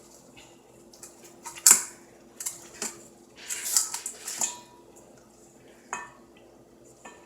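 Dishes and utensils clinking and knocking as chicken wings are handled and seasoned. A few sharp clinks come through, the loudest nearly two seconds in, with a scratchy run of knocks around four seconds, over a faint steady hum.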